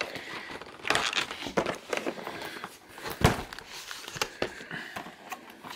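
Cardboard advent calendar boxes being handled and shifted: scattered crinkles, rustles and taps, with one louder thump a little over three seconds in.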